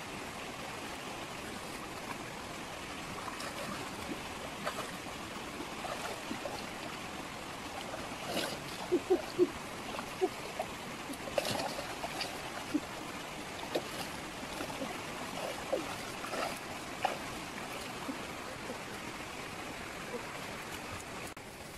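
Rocky stream flowing steadily, with splashes from someone wading through it and working in the water by hand. A run of sharper splashes comes about eight to twelve seconds in.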